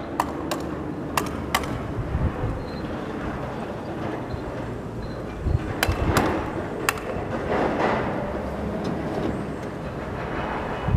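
Engine running steadily with a low hum, broken by sharp metallic clanks: four in the first two seconds and three more around six to seven seconds in.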